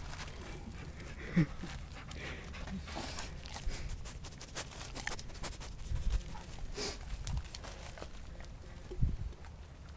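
A chubby puppy panting and snuffling, with a short sharp sound about a second and a half in and another near the end.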